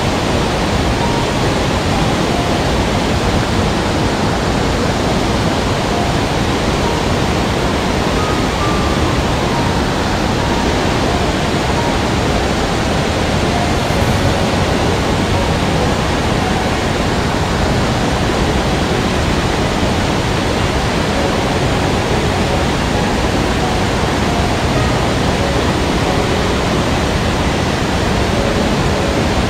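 Mountain stream rushing: a steady, loud wash of flowing water.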